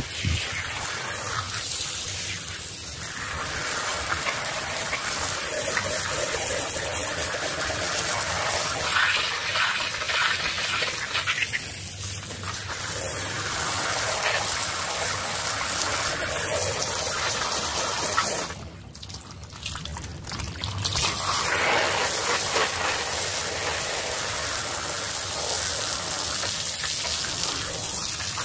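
A flat fan of water spraying onto a soaked rug, a steady rush that swells and eases as the jet sweeps across the pile. About two-thirds of the way through it drops away for a couple of seconds, then comes back.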